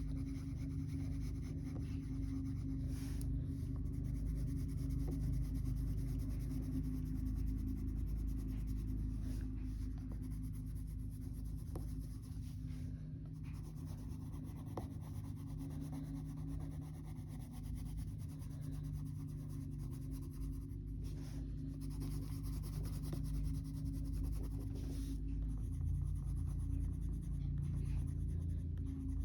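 Colour pencil scratching steadily on colouring-book paper, over a steady low background hum.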